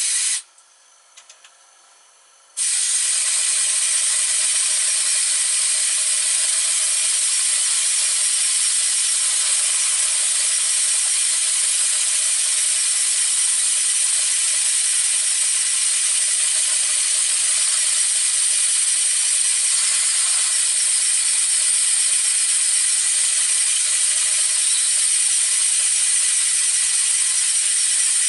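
Model diagonal paddle steamer engine running fast on compressed air, driving one paddle wheel with the dog clutch disconnected: a steady hissing and mechanical clatter that starts about two and a half seconds in, after a short burst.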